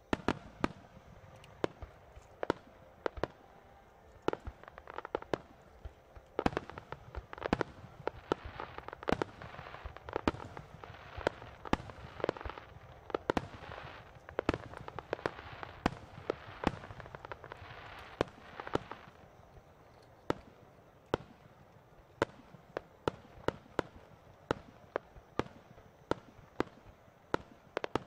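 Aerial firework shells bursting in rapid succession: dozens of sharp bangs, often several a second, coming thickest in the middle of the display.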